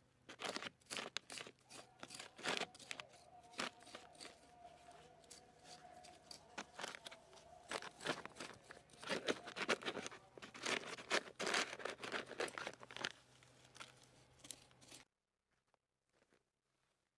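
Plastic grow sack crinkling and crackling as hands work in the soil and potato plants inside it, a dense run of short crackles that stops abruptly about 15 seconds in.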